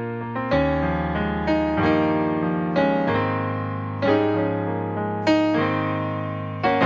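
Yamaha Clavinova digital piano played solo: full chords struck every second or so and left to ring, with lighter notes in between.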